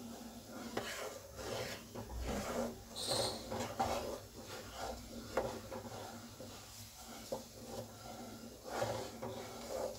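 A wooden spatula scrapes and stirs thickening milk around a kadhai in irregular strokes, with an occasional sharper knock against the pan. The milk is being stirred without a break as it cooks down to khoya, to keep it from catching on the bottom.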